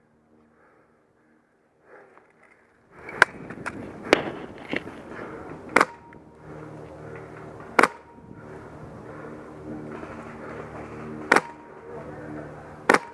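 Airsoft rifle firing single shots, about seven sharp cracks at irregular spacing, over a steady background of rustling movement noise. Before the first shot there are about three seconds of near quiet.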